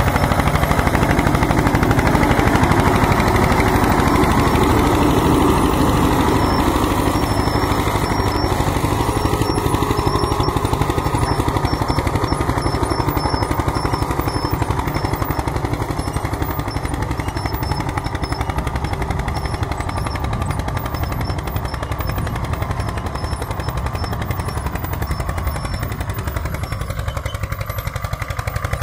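Eicher tractor's diesel engine working under load as it pulls a 12-disc harrow through ploughed soil, with a rapid, even exhaust beat. It grows somewhat quieter near the end as the tractor is farther off.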